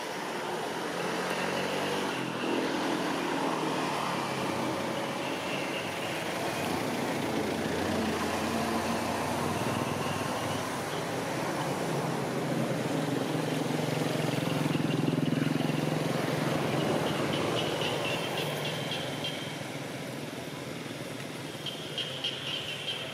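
A motor vehicle's engine running, growing louder toward the middle and dropping away about three-quarters of the way through.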